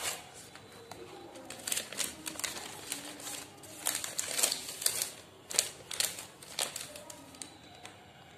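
Parcel packaging being handled and opened by hand: irregular paper and wrapping rustles with sharp crackles, several a second.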